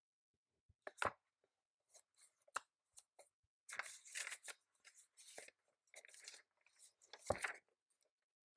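Irregular desk-handling sounds: a few sharp knocks, the loudest about a second in and near the end, between short stretches of rustling.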